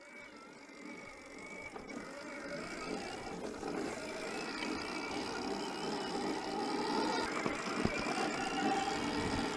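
Motocross bike engine running at low revs, with its tone wavering slightly and growing steadily louder as the sound fades in.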